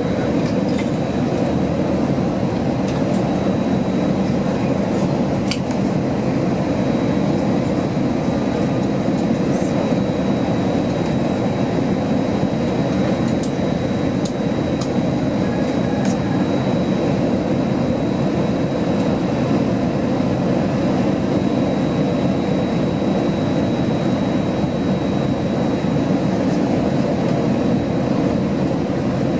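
Steady rush of airflow and engine noise inside the cabin of an Airbus A321 airliner on final approach, with a faint high steady whine and a few faint clicks.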